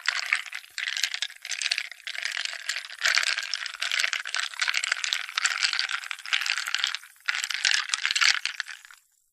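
Ice cubes rattling and clattering against each other in a dense run of small clicks, with a brief break about seven seconds in. The rattling stops just before the end.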